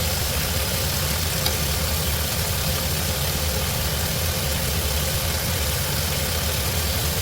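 Steady mechanical rumble with an even hiss over it, like a running engine or motor.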